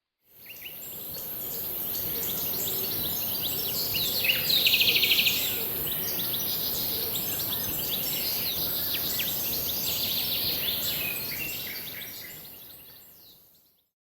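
Wild birds singing and chirping, with a loud rapid trill about four to five seconds in, over a steady high-pitched hiss. The sound fades in at the start and fades out near the end.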